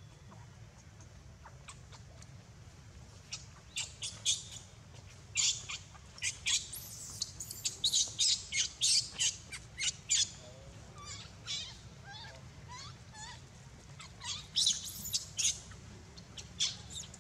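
Rapid high-pitched chirps and squawks from animals, coming in clusters from about three seconds in, densest in the middle and again near the end.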